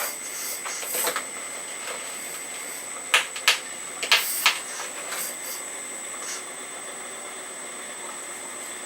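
Earth Digger 4200XL RC hydraulic excavator running, its hydraulic pump giving a steady high whine. About three to four and a half seconds in there are four short, sharp bursts of hissing noise as the machine works.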